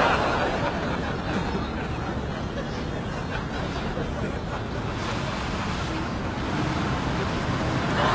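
Studio audience laughter dies away in the first second, then a steady rushing noise.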